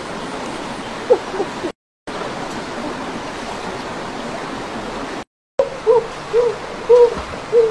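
Steady rushing of a rocky stream. It cuts out briefly twice. Over the last couple of seconds come short hooting calls, about two a second.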